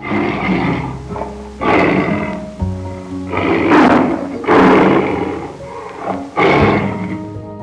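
A tiger roaring and growling in about five loud, rough bursts over background music.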